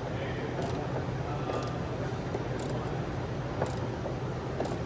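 Wrenches turning a bolt to set a rivet nut, giving a few sharp metal clicks about a second apart over a steady low hum.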